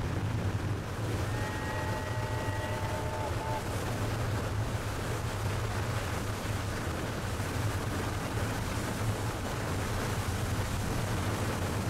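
Boat's motor running steadily, with water and wind noise. About a second and a half in, a short steady whistle-like tone sounds for about two seconds.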